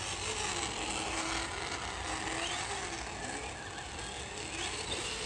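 Traxxas onboard sound module playing a recorded V8 truck engine through the RC truck's speakers, its pitch rising and falling as the throttle comes on and off, over a gritty mechanical rattle from the truck running on the track.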